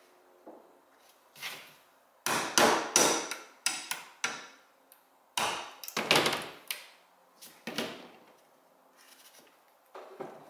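Standard hammer tapping a pin punch to drive the locking block pin out of a Glock 20SF frame: a series of short, sharp taps in quick clusters, starting about two seconds in and stopping near eight seconds.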